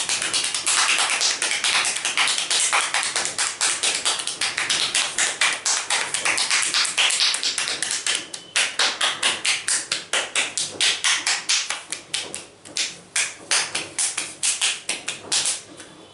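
Hands rapidly tapping and slapping on an oiled head in a percussive head massage, about five taps a second in an even rhythm. The taps grow weaker over the last few seconds and stop near the end.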